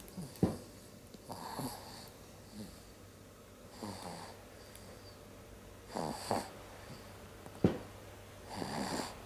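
A young sleeping kitten snoring with a wheezy rasp, one breath roughly every two to two and a half seconds. Two sharp clicks cut in, the louder one about three-quarters of the way through.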